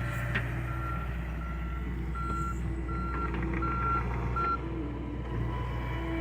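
Backup alarm beeping in a steady series of short single-pitch beeps, about seven of them, that stop about four and a half seconds in, over the steady low hum of a diesel engine running.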